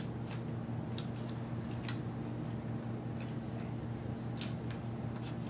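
Scattered small clicks and ticks from a plastic spudger and fingers prying an antenna cable free along the top edge of a MacBook Air's case, with one louder click about four seconds in. A steady low hum runs underneath.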